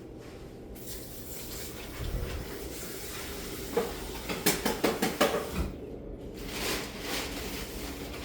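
Hand tool scraping and clinking against a hard floor surface, a quick run of about eight sharp strokes a little before the middle, over a steady background hum.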